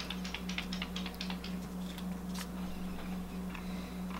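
Faint handling sounds, small irregular taps and rustles, as a paper fragrance test strip is handled and brought up to be sniffed, over a steady low hum.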